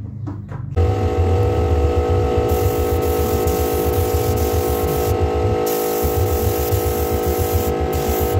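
Small air compressor running with a fast, pulsing chug and a steady hum, starting about a second in. Over it, a spray gun hisses in bursts as wood sealer is sprayed, stopping and restarting several times as the trigger is released and pulled again.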